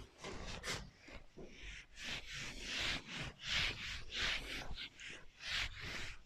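Handheld eraser wiped back and forth across a whiteboard: a run of rubbing swishes, about one or two strokes a second.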